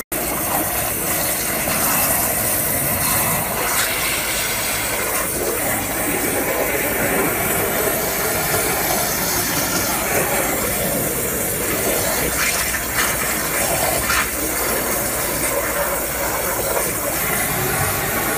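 CNC waterjet cutter (WW5060JEET) cutting a metal plate: the high-pressure water jet gives a steady hiss.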